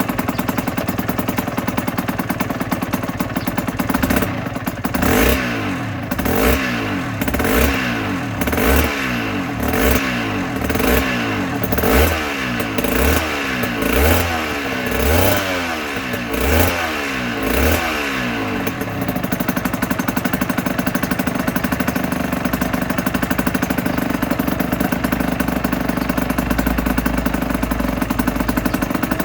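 2008 Aprilia RS125's single-cylinder two-stroke engine idling, then blipped in about a dozen quick revs, roughly one a second, from about four seconds in. It settles back to a steady idle near the eighteen-second mark.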